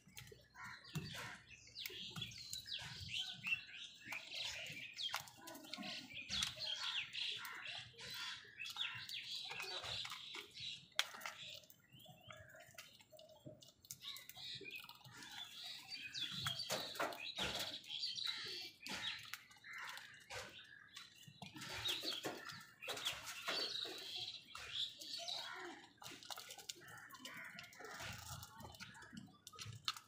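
A flock of house crows calling in bouts while feeding, a busy mix of harsh calls and chirps, with many sharp clicks throughout.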